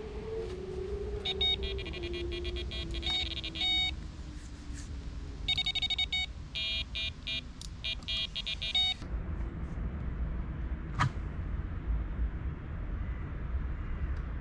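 Electronic carp bite alarms beeping in quick runs of short electronic tones as the line moves over them while the rods are set on the pod, in two spells from about one to four seconds in and again from about five and a half to nine seconds in.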